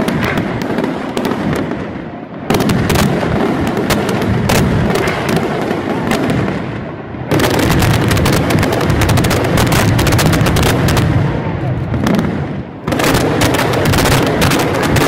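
Daytime fireworks display, smoke shells bursting overhead in a dense, rapid barrage of bangs and crackles. The barrage thins briefly and surges back louder about two and a half, seven and thirteen seconds in.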